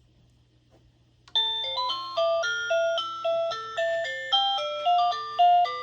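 OhmKat video doorbell chime playing one of its built-in tunes: a quick electronic melody of short chiming notes, several pitches at once, beginning about a second and a half in.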